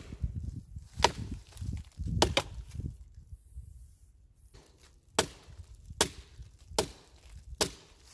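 Hatchet head of a collapsible survival shovel-axe chopping into a fallen log: sharp wooden whacks, a few irregular strikes, a pause about halfway, then four evenly spaced blows under a second apart.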